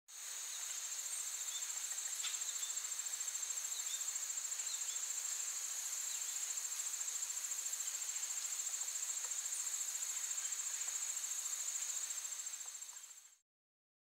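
Insects singing in one steady, high-pitched, rapidly pulsing trill, with a few faint short chirps over it; the sound fades in at the start and fades out near the end.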